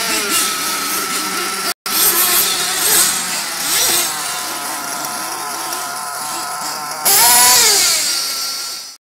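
Small nitro engines of 1/8-scale RC off-road buggies running at high revs, a steady high-pitched whine. About seven seconds in, a buggy passes close and the sound swells with its pitch falling; there is a brief dropout near two seconds, and the sound cuts off suddenly near the end.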